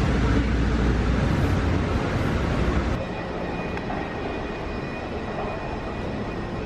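Subway train running, heard from inside the car: a steady low rumble and rattle. About halfway through it cuts to quieter station ambience carrying a faint steady high tone.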